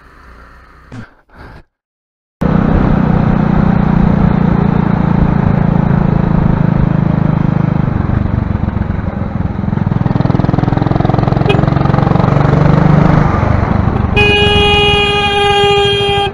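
Motorcycle running under way in traffic, its engine note mixed with wind rush, starting suddenly after a short quiet stretch. Near the end a horn sounds as one steady tone for about two seconds.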